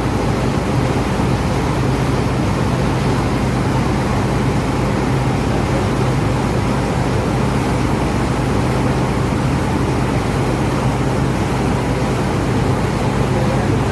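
Passenger ferry's engines droning steadily, a constant low hum under a wash of noise.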